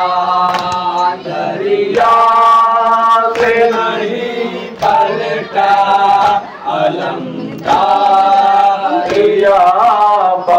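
A group of men chanting a Shia noha (mourning lament) in unison, led by a voice over a PA microphone, with sharp chest-beating slaps of matam about every second and a half.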